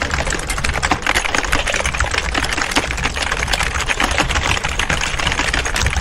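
Many computer keyboards typed on at once: a dense, unbroken clatter of key clicks with no pauses, over a low steady hum.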